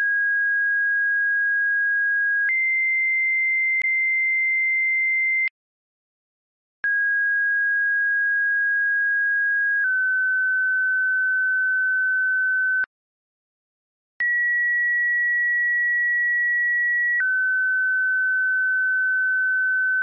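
Computer-generated siren activation codes: three pairs of steady pure tones, each pair two pitches of about three seconds each, stepping straight from one to the other, with a short silence between pairs. They are two-tone sequential codes that set off outdoor warning sirens on the attack signal.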